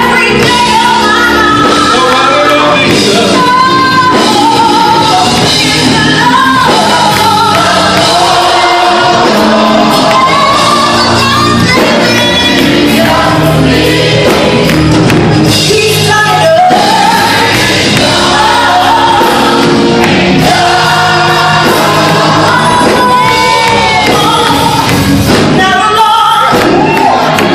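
Gospel worship music: a group of voices singing together over instrumental accompaniment, loud and continuous, in a large hall.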